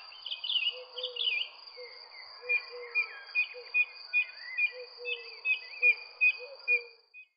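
Birds chirping over a steady, high insect drone. From about two and a half seconds in, a bird repeats a short call about twice a second, then the sound stops shortly before the end.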